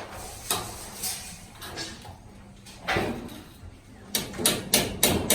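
Construction knocks and clanks from ceiling work, metal furring being put up: a few separate sharp knocks, then a quick run of five or so knocks near the end.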